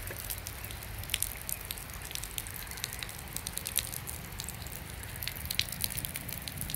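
Rain falling on a river and its bank: a steady hiss with many irregular sharp drop ticks and splats, over a low rumble.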